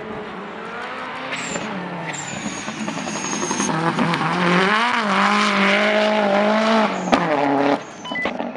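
Autosprint car's engine running hard at high revs as it speeds past on a dirt track. It grows louder with a rising note up to about five to seven seconds in, then the note drops sharply and the sound falls away near the end.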